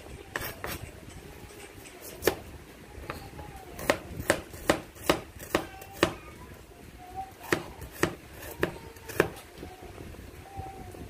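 Chef's knife chopping garlic cloves and an onion on a plastic cutting board: sharp, irregular knocks of the blade on the board. There is a quick run of about six knocks around the middle and a few spaced ones near the end.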